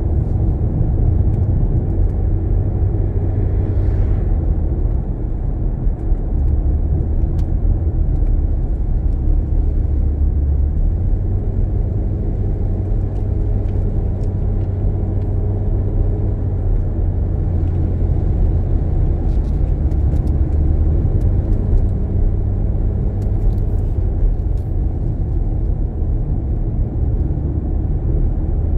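A car driving along a sealed road: a steady low rumble of tyres and engine.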